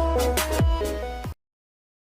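Electronic background music with held synth notes and deep bass hits that drop in pitch. It cuts off abruptly just over a second in, leaving dead silence.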